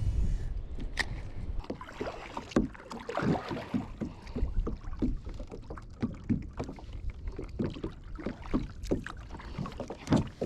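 Kayak being paddled through choppy water: a string of irregular paddle splashes and strokes, with wind rumbling on the microphone at the start.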